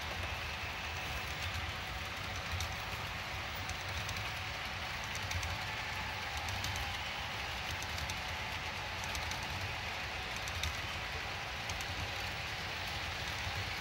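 Model freight train cars rolling steadily along the layout track, a continuous low rumble and whir of small wheels on rail with scattered light clicks over the rail joints.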